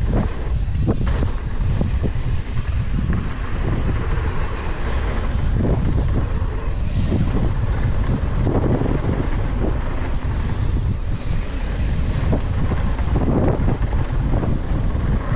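Wind buffeting the microphone of a rider-mounted camera as a mountain bike descends a packed-dirt trail at speed, with the tyres rolling over the dirt and the bike knocking and rattling over bumps.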